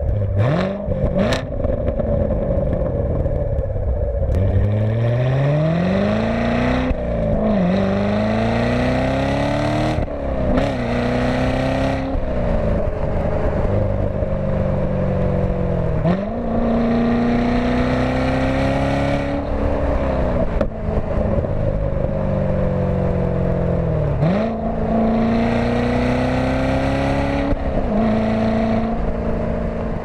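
2014 Chevrolet Corvette Stingray's 6.2-litre LT1 V8 heard through its active exhaust with the valves open, pulling through the gears of the seven-speed manual. Several times the engine note climbs in pitch, then drops at a gear change.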